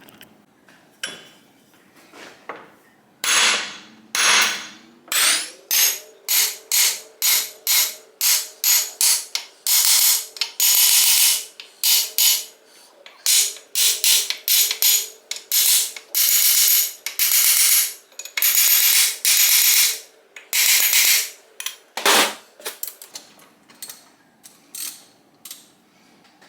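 Ratchet wrench clicking in many quick repeated strokes, some runs longer, as the bottom case bolts of a Kawasaki KZ1000 engine are backed out.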